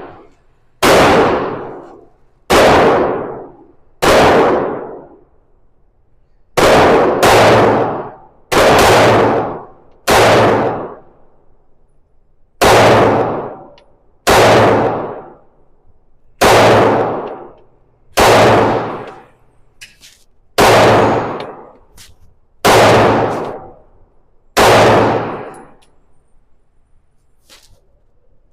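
Glock 45 9mm pistol fired in slow, deliberate single shots, about fourteen in all, one every second or two. Each report has a short ringing tail.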